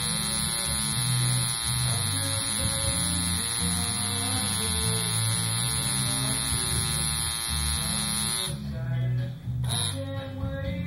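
Coil tattoo machine buzzing steadily over background music with a bass line. The buzz stops about eight and a half seconds in, comes back for a moment, and stops again near the end.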